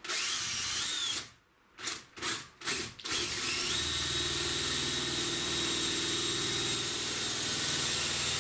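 Power drill spinning a 7/8-inch spade bit as it bores through 1/4-inch plywood. There is a short run, then two brief bursts, then a steady run of about five seconds.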